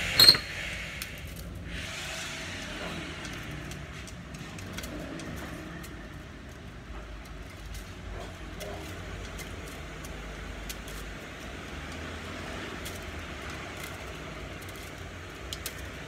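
Enamelled copper winding wire being handled and pushed into the slots of a three-phase motor's stator: faint rustling and small metallic ticks over a steady background rumble. One sharp click just after the start is the loudest sound.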